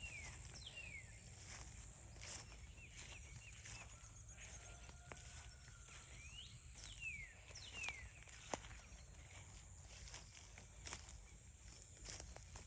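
A songbird whistling clear down-slurred notes, once near the start and again about halfway through, over a steady high-pitched whine. Scattered footsteps and light clicks between the calls.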